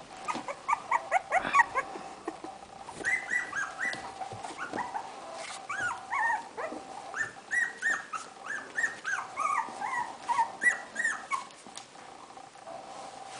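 Young puppies whining and yelping in many short, high cries that rise and fall, coming in quick runs and stopping about two seconds before the end.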